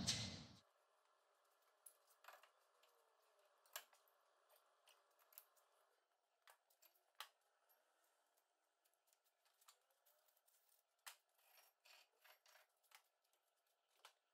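Near silence, with a few faint, scattered light clicks and ticks.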